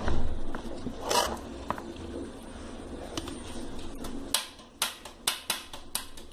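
Kitchen handling noise around a plastic mixing bowl of shredded chicken and egg: a couple of soft brushing sounds in the first second or so, then a quick run of about five sharp clicks from about four seconds in.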